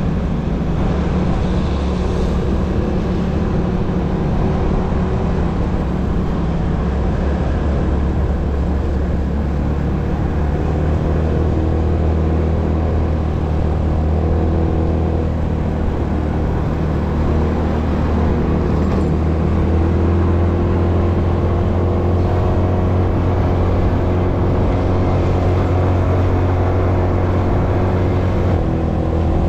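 A road vehicle driving, heard as a steady low engine drone and road rumble, with the engine pitch climbing slowly in the second half.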